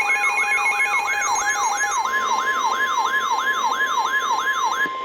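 Weather radio alert tones: a siren-like wail sweeping up and down about two and a half times a second, layered with steady electronic tones. A steady high tone comes in about two seconds in, typical of the NOAA Weather Radio warning alarm that precedes a warning broadcast, and everything cuts off abruptly at the end.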